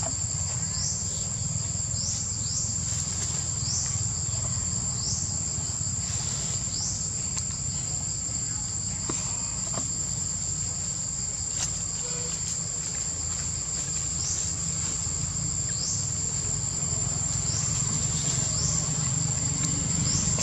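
Forest insects calling: a steady high-pitched drone, with short rising chirps repeating about once a second in stretches, over a steady low rumble.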